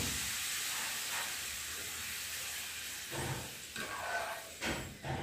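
Small pieces of pappadam sizzling in hot oil in a frying pan, a steady hiss that fades over the first three seconds. From about three seconds in come several short knocks and scrapes as they are stirred in the pan.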